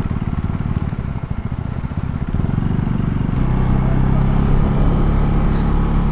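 KTM Duke 390's single-cylinder engine running as the motorcycle is ridden. The engine note grows louder and steadier about halfway through.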